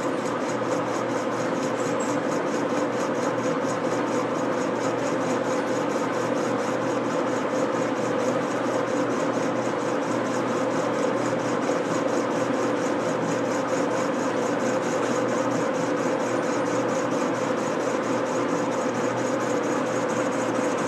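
A 1944 Sidney 16-inch engine lathe running steadily while the cutting tool faces the end of a piece of pipe: a constant machine hum with a fine, even flutter and the scrape of the cut.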